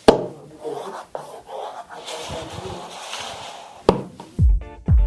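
Speaker packaging box being handled and opened: a sharp knock, rubbing and scraping of the box for a few seconds, then another knock. Near the end, music with a heavy bass beat starts, about two beats a second.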